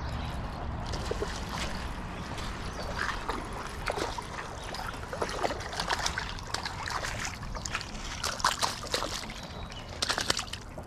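Irregular clatter and crunch of footsteps on loose river cobbles, mixed with the splashing of a hooked smallmouth bass at the water's edge, loudest near the end, over the steady rush of the creek.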